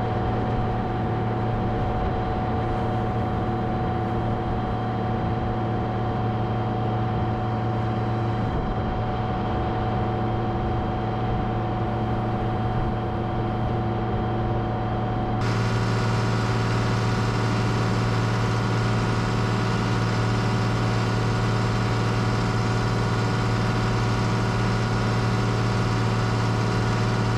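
John Deere tractor engine running at a steady speed, driving a Penta vertical-auger feed mixer wagon, with a strong low hum. About halfway through the sound turns louder and fuller, with more hiss, as a skid-steer loader runs close by loading hay into the mixer.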